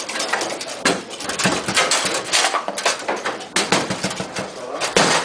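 Foosball in fast play: the ball struck by the figures and the rods knocking, a quick irregular run of sharp clacks and thuds, the loudest about a second in and near the end.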